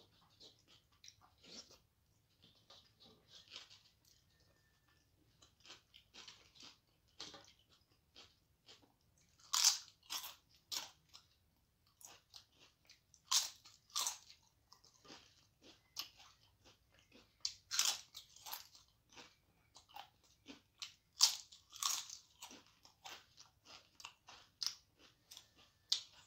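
Close-up crunching and chewing of fried papad (crisp lentil wafer): sharp, crackly bites that come in several loud clusters, with quieter chewing clicks in between.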